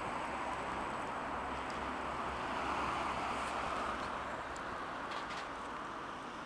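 Road traffic: a car passing on the road, its tyre and engine noise a steady hiss that swells about three seconds in and then fades.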